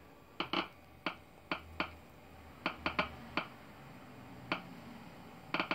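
Geiger counter clicking through its speaker at a random, slow rate, about a dozen clicks with some in quick pairs. Each click is one radiation event from uranium ore in a lead-shielded container, picked up by the probe with its beta shield open.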